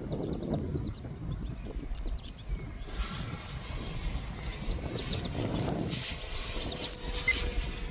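Radio-controlled Eurofighter jet's 90 mm electric ducted fan whining high overhead in flight, coming in clearly about three seconds in, with wind buffeting the microphone.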